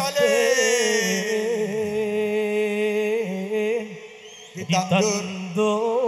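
A man singing an Islamic sholawat through a microphone, drawing out long ornamented notes over a steady low held tone. The voice breaks off shortly after the middle and starts again about a second later.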